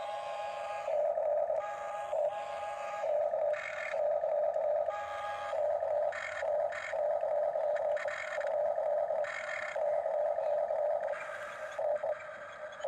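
Electric gear motors of a Huina radio-controlled toy excavator whining in a string of short bursts, each half a second to a second long, as the boom, arm and bucket are driven in turn.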